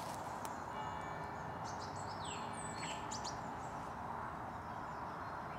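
Small birds chirping in short high calls, one a quick falling whistle, over a steady outdoor hiss, with a distant church bell striking.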